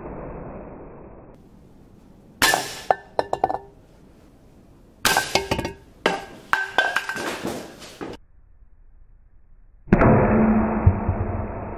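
Air rifle pellets striking small metal targets: sharp metallic clinks and clattering with a brief ring, in three clusters a couple of seconds apart. About ten seconds in, a loud, muffled, slowed-down impact starts suddenly with a low hum.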